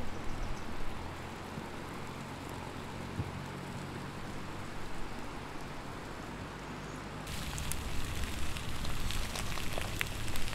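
A steady low background noise, then about seven seconds in, yakisoba sizzling and crackling in a black griddle pan on a gas camp stove.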